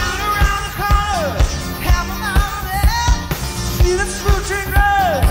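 Live rock band playing an upbeat song, with a steady drum beat, bass and guitars under a sung melody line.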